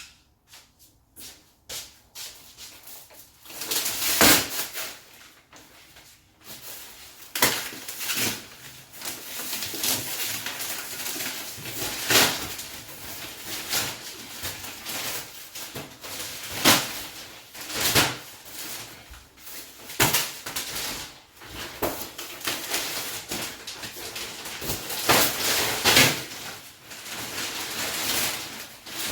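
Packaging being worked off a newly delivered fridge freezer: irregular rustling and scraping, with sharp knocks and bumps.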